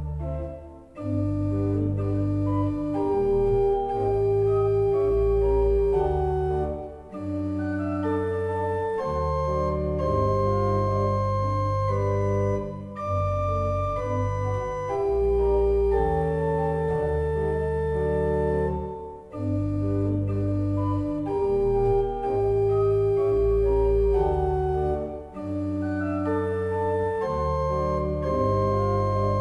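Pipe organ playing a chorale prelude. A melody in long notes sounds over short detached chords on another manual and a sustained pedal bass. The music moves in phrases with brief breaks about every six seconds.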